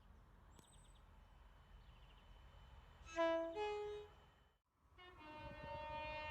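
Train horn blasts over the low rumble of a train. About three seconds in, a loud, short blast steps up in pitch partway through. After a brief break, a horn sounding several notes at once comes in near the end.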